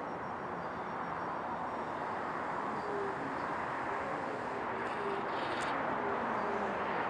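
Two VR Sr2 electric locomotives hauling a freight train approach, giving a steady rumbling hum with a faint whine that slowly grows louder.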